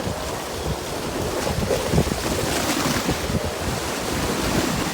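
Strong wind buffeting the microphone, with a stronger gust in the middle.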